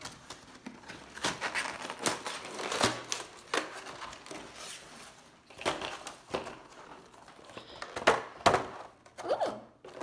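Cardboard box and clear plastic tray of a trading-card collection being handled and pulled apart: irregular crinkling and rustling with scattered clicks, and a few louder snaps.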